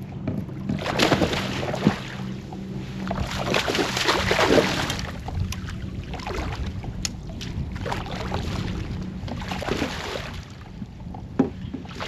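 Water splashing and sloshing against a fishing kayak in several surges, over a steady low hum.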